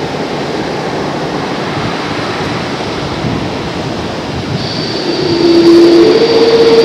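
Boeing 787 Dreamliner's Rolls-Royce Trent 1000 turbofan engines running at taxi power, a steady rushing sound. About five seconds in it grows louder and a high whine and lower steady tones come in.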